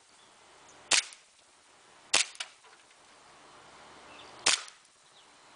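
WE full-metal M1911 gas blowback airsoft pistol firing three single shots, each a sharp crack, spaced irregularly about one to two seconds apart.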